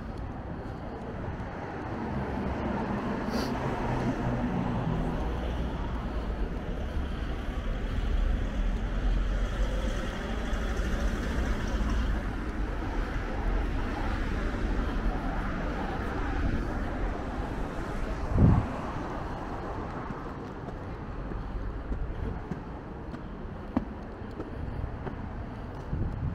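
Road traffic on a town street: cars driving past, with a steady low rumble. An engine hum stands out in the first few seconds, and there is a single sharp knock about two-thirds of the way through.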